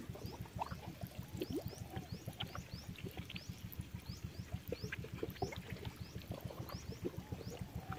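Quiet water trickling and dripping around someone wading in shallow water, with a steady night chorus of short rising chirps.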